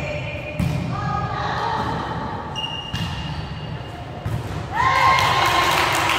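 Indoor volleyball game: the ball is struck and lands with several sharp thuds, echoing in a large hall. Voices from players and spectators rise near the end.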